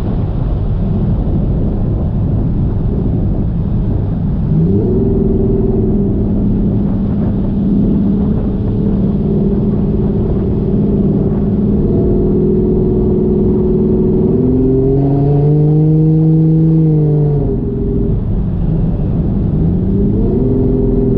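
Turbocharged 1JZ inline-six engine in a Fox-body Mustang running at part throttle while cruising. Its pitch climbs about four seconds in and holds steady, climbs higher a little past the middle, falls away, then climbs again near the end.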